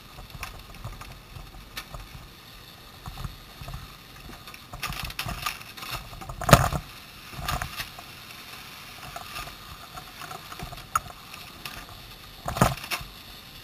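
Scattered knocks and thumps over a low steady rumble, the loudest about six and a half seconds in and again near the end.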